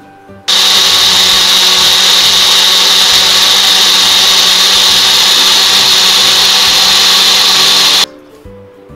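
Electric mixer grinder (mixie) running at full speed, grinding bananas with sugar, oil and milk into a smooth liquid batter. It is a loud, steady whir with a low hum. It starts suddenly about half a second in and cuts off abruptly about a second before the end.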